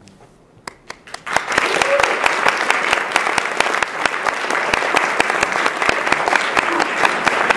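Audience applauding: a few scattered claps, then full applause breaks out about a second in and keeps going.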